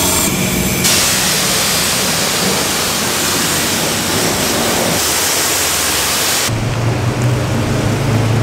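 Self-serve car wash pressure wand spraying water onto a truck: a loud, steady hiss of high-pressure spray. About six and a half seconds in it cuts off, leaving a steady low hum.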